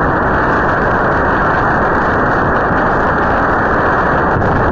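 Tornado winds blowing hard past a doorbell camera's microphone: a loud, steady rush of noise, muffled with no treble.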